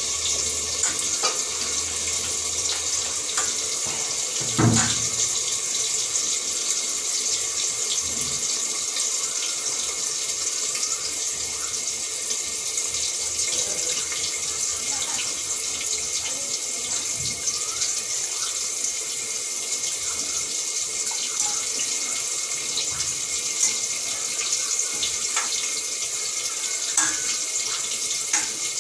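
Tap water running steadily into a steel bowl while raw chicken pieces are washed by hand, with scattered small clinks and one louder knock about five seconds in.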